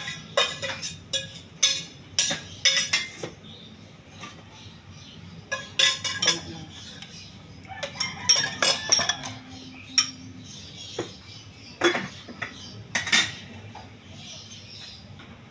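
Dishes and utensils clinking and knocking in scattered bursts of sharp strikes, with quieter gaps between.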